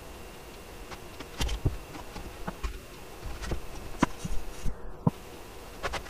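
Irregular light knocks and clicks as a plastic wood-glue bottle and timber strips are handled on a workbench while glue is squeezed along the wood, about ten in all. A faint steady electrical hum runs underneath.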